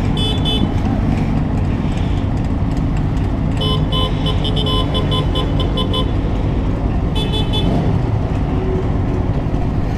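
Steady motorcycle engine and traffic rumble, with stuttering series of rapid horn toots: a short burst at the start, a longer run of about two seconds in the middle, and another short burst later.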